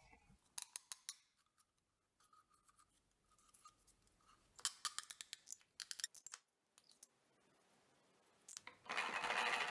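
Small hardwood box door on a wooden dowel hinge being worked open and shut: faint clusters of wood-on-wood clicks and taps. Near the end a steady rushing noise starts.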